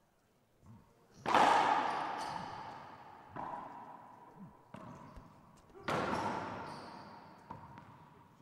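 Racquetball being struck and rebounding off the walls of a glass-walled court during a rally: sharp cracks that each ring out and fade over a second or two. The loudest comes about a second in and another near six seconds, with lighter hits between.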